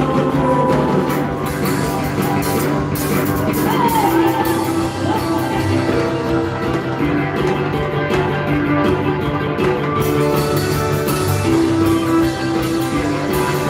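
Live band music with a steady drum beat, electric bass and acoustic guitar, the drum kit including a Korean barrel drum; held melody notes run over the beat.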